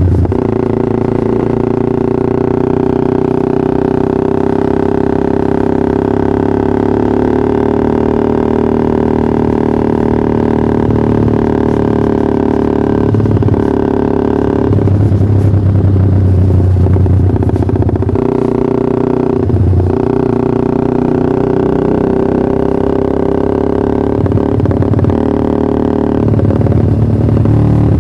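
Yamaha R15 V3's single-cylinder engine running through a Pro Liner TR1 aftermarket exhaust, mostly at a steady pitch, with the note shifting a few times around the middle.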